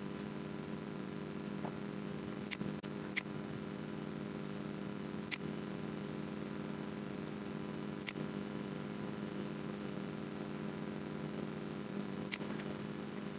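Five sharp computer-mouse clicks at irregular intervals over a steady low hum.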